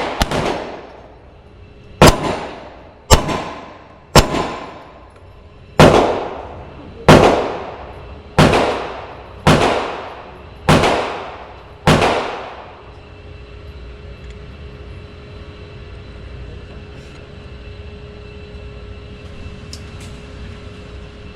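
A 9mm Glock 19 pistol firing about ten shots at a steady pace, roughly one every second or so, each shot ringing out and fading. The shooting stops about 12 seconds in, leaving a steady background hum.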